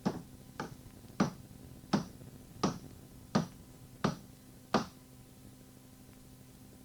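Eight sharp, evenly spaced snaps or clicks, about one every 0.7 seconds, then they stop.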